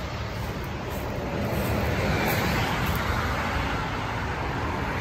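Steady road noise of a moving car: an even rumble and hiss.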